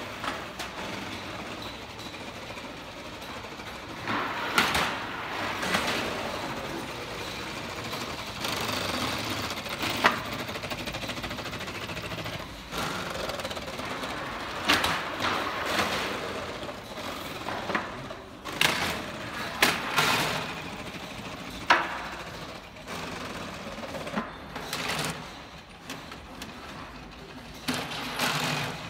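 Gravity roller conveyors of a karakuri tray-handling rig: plastic trays rattling along the roller tracks, with irregular sharp clacks and knocks as trays and mechanisms shift and stop.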